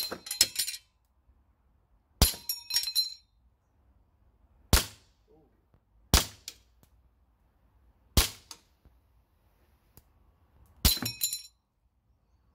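Six sharp shots about two seconds apart from a gas blowback airsoft pistol, the BBs striking a Texas Star spinner target. Several hits are followed by a metallic ringing, rattling clatter as plates are knocked off and fall.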